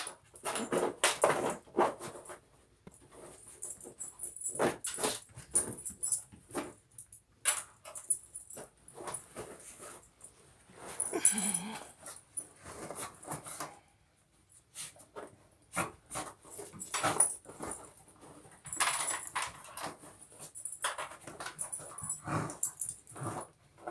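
Two dogs digging with their paws in an iDig dig toy: irregular scratching and rustling of the fabric flaps, with clicks against the plastic bowl. A short dog whimper comes about halfway through.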